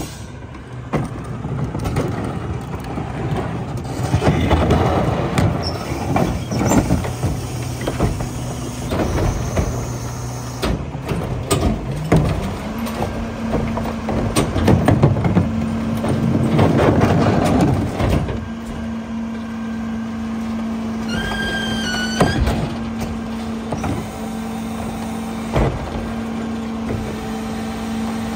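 Mack Granite garbage truck with a Heil rear-loader body running on the street: the diesel engine idles steadily, then speeds up to a higher steady pitch about twelve seconds in as the hydraulics work. Over it come repeated bangs and clatter of plastic wheeled carts being tipped into the rear hopper, with a few short squeaks near the end.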